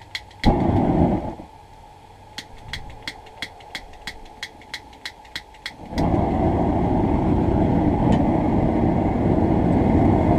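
Long-nosed lighter clicking repeatedly at the mouth of a small propane forge, about four clicks a second, with a brief rushing burst about half a second in. About six seconds in the burner catches and runs with a loud, steady rush of gas flame: a relight after the flame went out, which the smith blames on the wind.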